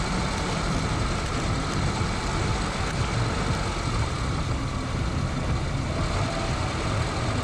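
An engine running steadily, with a constant low rumble and no change in pitch.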